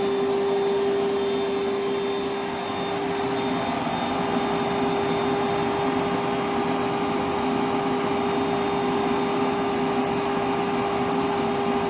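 Milwaukee M12 1.6-gallon cordless wet/dry shop vacuum running steadily on high speed with its hose open and unloaded, a constant whine over the rush of air. It is still at full power about a minute into a battery runtime test.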